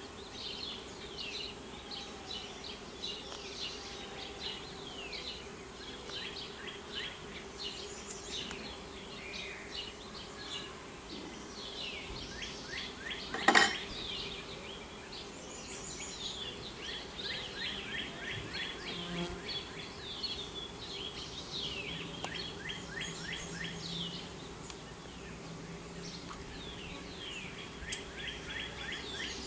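Honeybees buzzing in a steady hum around an opened hive during a frame inspection, with songbirds chirping and trilling throughout. One sharp click, the loudest sound, comes about halfway through.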